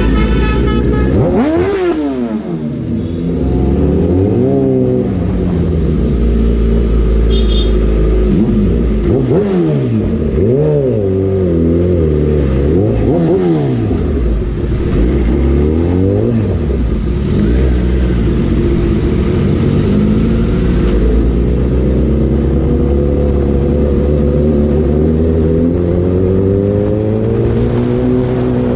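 Kawasaki inline-four superbike engine with an aftermarket exhaust, revved again and again, its pitch climbing and dropping in a string of quick blips. In the second half it runs more steadily, rising slowly again near the end.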